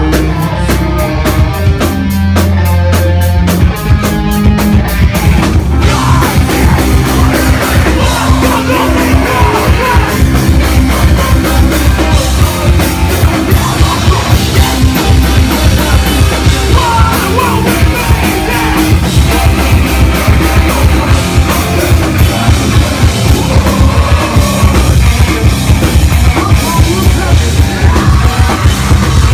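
Rock band playing live, with drum kit, bass guitar, electric guitar and a vocalist yelling and singing. The first few seconds are sparser, with steady drum hits and bass. About six seconds in the full band comes in with the vocals.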